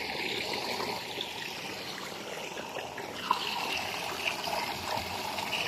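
Small stream of water pouring out of a stone culvert and splashing over rocks, a steady trickling.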